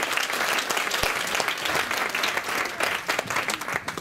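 Small audience applauding, a dense patter of hand claps that dies away near the end.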